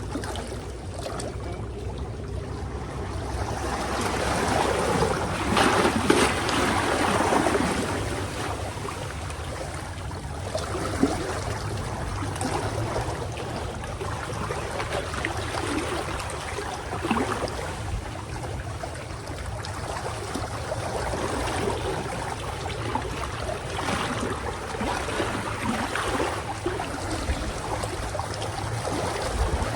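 Moving water splashing and lapping, with irregular surges, loudest a few seconds in, over a steady low rumble.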